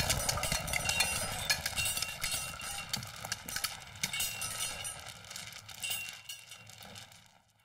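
Earthquake sound effect: a low rumble with many quick clattering knocks, like rattling debris, dying away to near silence near the end. In this film the earthquake rumble is voiced by human performers rather than taken from recordings.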